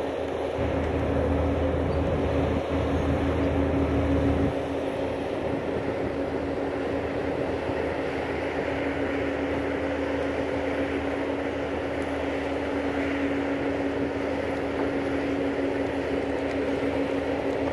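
Bobcat compact track loader's diesel engine running steadily under work, with a steady whine over it; the low rumble eases about four and a half seconds in.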